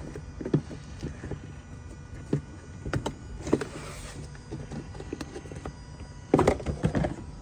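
Scattered clicks and knocks of parts being handled, with a short rustle about three and a half seconds in and a louder cluster of knocks near the end, over a steady low hum.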